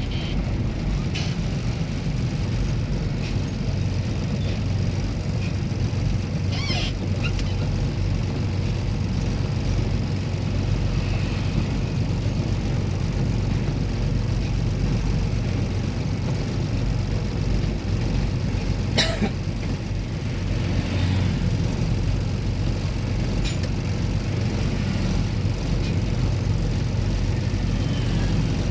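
Vehicle engine running steadily with a low rumble and hum, heard from inside the moving vehicle. A couple of short sharp clicks or knocks come through, about a third of the way in and again about two thirds in.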